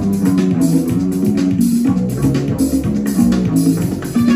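Guitar-led music with bass playing back through a Sansui 9090 receiver and Celestion Ditton 442 loudspeakers, heard in the room.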